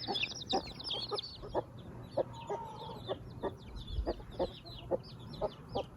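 Broody hen giving soft, regular clucks, about two a second, while her chicks peep with rapid, high chirps.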